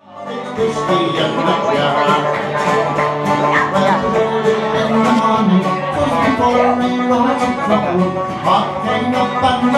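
Folk tune played on plucked strings, banjo and guitar, starting at once and running steadily.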